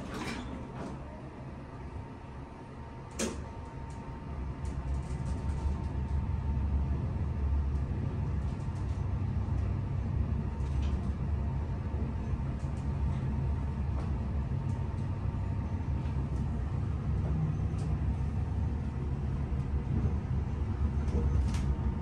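Otis elevator car travelling upward: a steady low hum and rumble from the moving car. A single knock comes about three seconds in, as the rumble sets in, and a few light clicks follow later.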